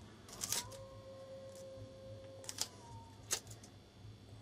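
Faint handling noises from a strip of masking tape being torn and stuck down: a few short clicks and rustles, over a low steady hum, with a faint thin tone for about two seconds early on.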